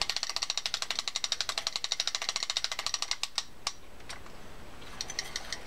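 D.A.M. Quick 440 spinning reel's anti-reverse ratchet clicking as the handle is cranked, a fast even clicking of about ten clicks a second for about three seconds. It then slows to a few single clicks and faint ticks near the end.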